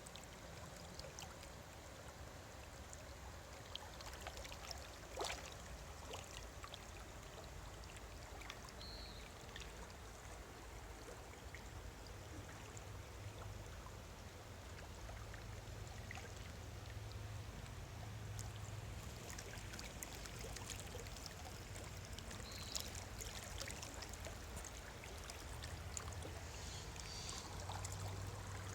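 Running water, a steady rush with a low rumble underneath and a sharp click about five seconds in.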